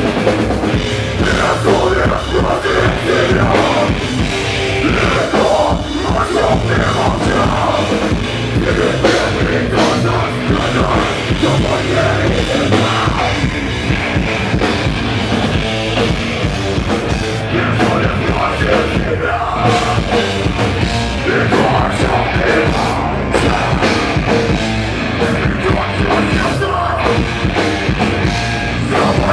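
Heavy rock band playing loud and without a break: electric guitars, bass and drum kit, with vocals.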